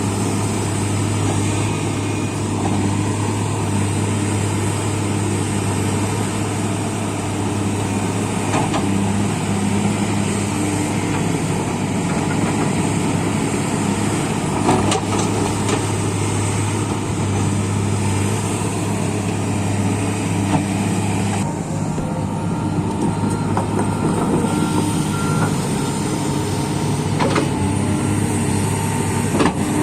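Heavy diesel earthmoving machinery running steadily, a deep continuous engine drone. Some of the higher hiss falls away about two-thirds of the way through.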